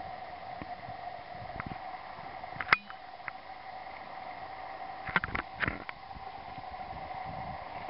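Steady rush of river water under a faint steady hum, broken by one loud sharp click about three seconds in and a quick run of clicks around five seconds in.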